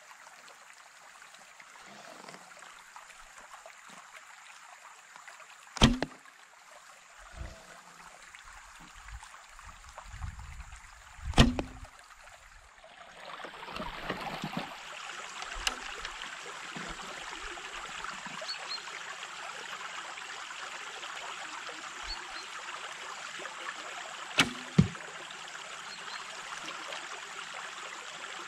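Grozer Assyrian biocomposite recurve bow shot twice, each a single sharp snap, a few seconds apart. A shallow stream then runs steadily from about halfway through, with two more sharp snaps in quick succession near the end.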